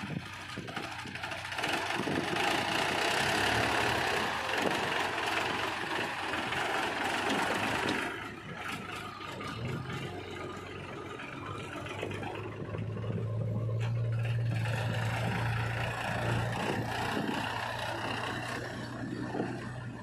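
Powertrac 434 DS tractor's three-cylinder diesel engine running under load as it pulls a trolley heaped with mud, a steady low engine hum that is strongest in the second half.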